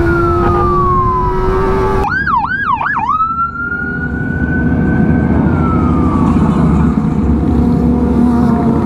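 Electronic siren sounding over the running engines of a group of motorcycles. A falling wail comes first, then about two seconds in there are three quick up-and-down yelps, followed by a long held tone that slowly drops away around six seconds in.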